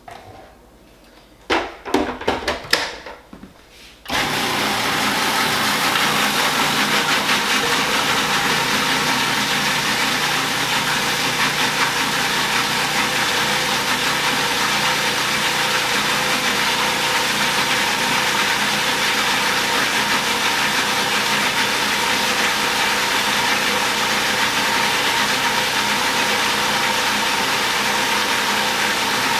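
A few short knocks, then a food processor switches on about four seconds in and runs steadily, blending an herb sauce while olive oil is poured through the feed tube to emulsify it.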